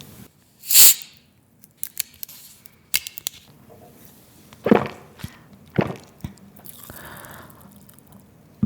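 Someone drinking: a short sharp hiss about a second in, then scattered sips, gulps and small mouth clicks.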